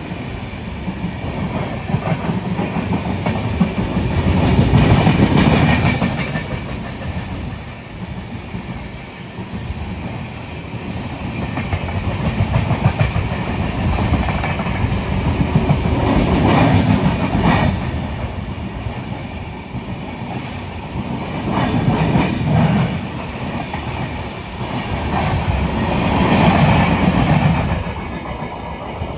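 Long-distance passenger express train running through without stopping, its coach wheels clattering over the rail joints; the loudness swells and fades every few seconds as the coaches go by.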